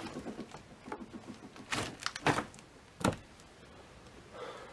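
A few scattered dull knocks and thuds. The three clearest come about two to three seconds in, each well under a second apart, with a few small ticks before them.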